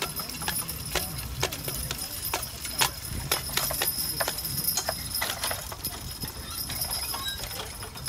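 Hooves of a mule team walking past, an irregular clip-clop of several steps a second, with the clink of harness and trace chains as they pull a riding plough.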